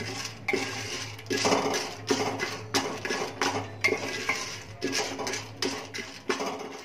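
A metal spoon stirring and scraping buttered popcorn kernels around the bottom of an aluminium pressure cooker in repeated irregular strokes, the kernels being fried in butter before the lid goes on to pop them.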